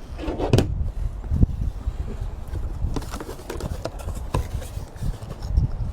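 Cardboard box being opened and its contents handled: irregular knocks, taps and rustling of packaging.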